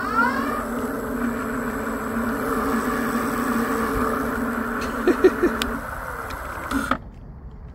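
Fiido TITAN e-bike's electric motor whining under the thumb throttle. It rises in pitch in the first half-second, holds a steady high whine at speed, then cuts off suddenly near the end as the throttle is released.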